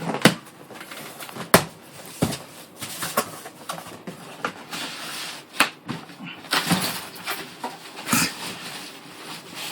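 Cardboard box and packaging of a PC case being handled and pulled open: irregular knocks and clicks mixed with rustling and scraping.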